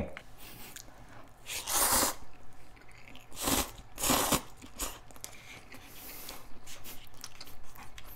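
Instant cup ramen noodles slurped in a few hissy draws a couple of seconds in, then chewed with small wet clicks.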